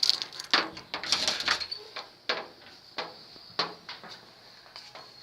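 A series of irregular knocks and bumps, the loudest in the first second and a half, then spaced about every half second to a second.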